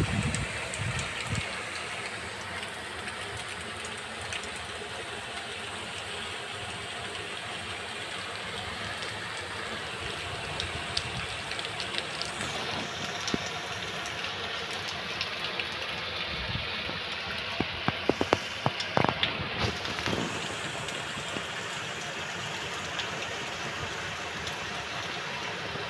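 Steady hiss of heavy rain and running storm water. The sound turns duller about twelve seconds in, and a cluster of sharp knocks comes about eighteen to twenty seconds in.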